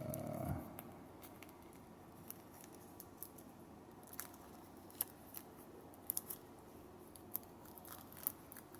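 Scissors cutting into a sealed foil trading-card pack: a string of small, faint, irregular snips and clicks.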